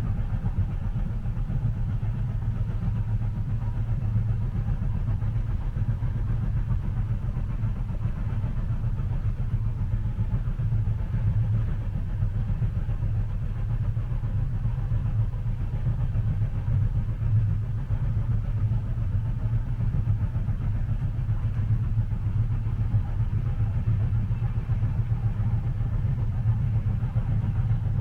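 Steady low rumble of a moving train heard from inside a passenger cabin, with no distinct rail clicks.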